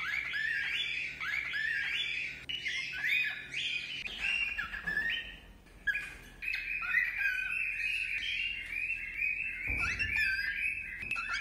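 Young cockatiel calling: a rapid series of short, rising chirps, then a denser, almost unbroken run of chattering calls.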